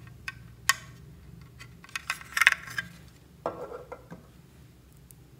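Hard plastic clicks and clinks from a small plastic makeup compact being handled and opened: a single sharp click early, then a quick run of clicks and rattles about two seconds in, followed by a short scrape about three and a half seconds in.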